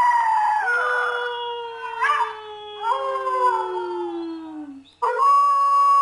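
Several dogs howling together, long overlapping howls that slide slowly down in pitch. They break off about five seconds in, and a single steady high-pitched call takes over.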